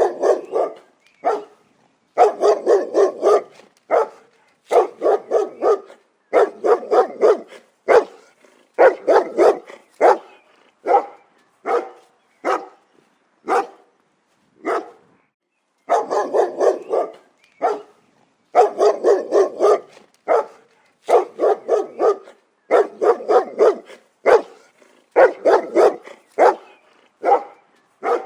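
A dog barking repeatedly, in quick runs of several barks with short pauses between the runs.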